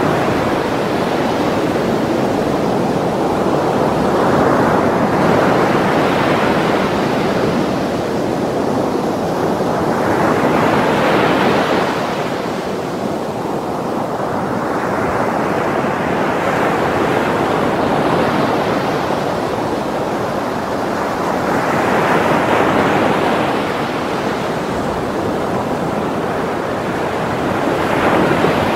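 Heavy ocean swell breaking and rushing in white water over black volcanic rocks: loud, continuous surf that swells with each incoming wave every five or six seconds.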